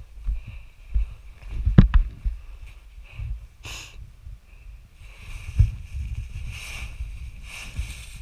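Wind buffeting an open-air camera microphone in irregular low gusts, with a faint steady high hiss and a brief rustle about three and a half seconds in.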